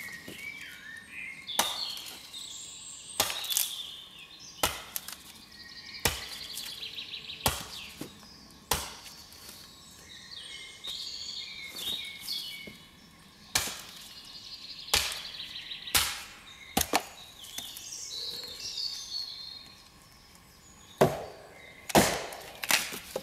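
Repeated dull wooden thuds, about one every second and a half, as a wooden pole is rammed down into the forest floor; two louder knocks come near the end. Birds sing between the blows.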